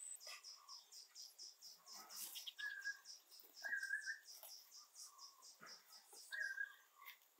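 Faint birdsong over insect chirping: a fast run of high chirps about five a second, with three short clear whistled bird notes and a few lower calls.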